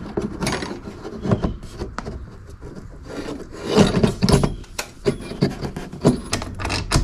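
A reproduction tachometer's metal-and-plastic case being pushed, twisted and rubbed into a plastic instrument cluster housing, giving irregular scrapes and knocks, loudest about four seconds in. It is a tight fit: the gauge does not seat cleanly.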